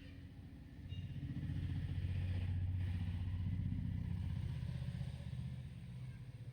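Engine of a motor vehicle passing by, a low pulsing hum that swells about a second in and fades near the end.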